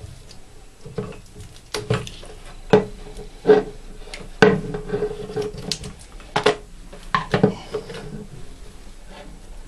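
Irregular clicks and knocks of hard plastic parts being handled as a bicycle pump's hose connector is fitted onto a homemade adapter screwed into a washing-machine water-inlet solenoid valve.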